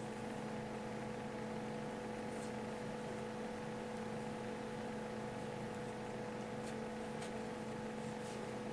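Steady electrical hum with hiss, and a few faint light ticks of metal knitting needles.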